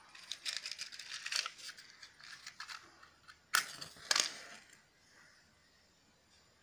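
Small clicks and rustles of a matchbox being handled, then a wooden match struck against the box with a sharp rasp about three and a half seconds in, and a second brief rasp just after.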